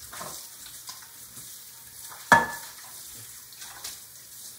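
Faucet water running over a pan as it is rubbed and rinsed clean in a kitchen sink, with one sharp clank of the pan that rings briefly about two seconds in.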